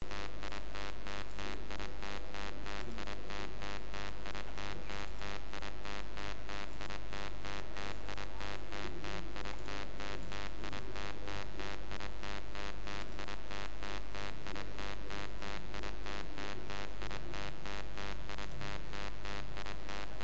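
A steady electrical buzz with a low hum, pulsing evenly several times a second without change.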